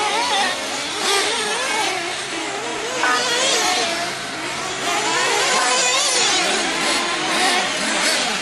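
Several nitro-powered 1/8-scale RC truggy engines racing together, their high-pitched whine rising and falling as they accelerate and back off. The pack gets louder about three seconds in.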